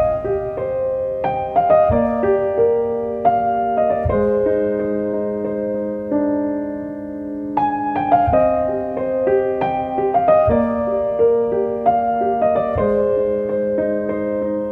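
Gentle piano music, with single notes and chords struck and left to ring over a held low note.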